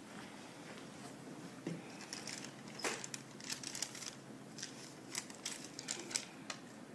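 Paper rustling and crinkling as a paper check and banknotes are picked up and handled: a run of short, crisp rustles starting about two seconds in.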